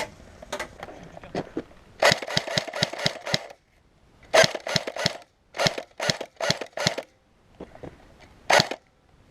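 Airsoft guns firing in several bursts of rapid shots, with pauses between the bursts and a lone shot near the end.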